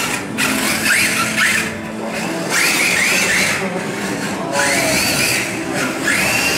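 Simulated engine sound from a D-Like Sound Meister EVOL sound unit on a radio-controlled drift car: the engine note is revved up and down in repeated short blips, with brief drops between them.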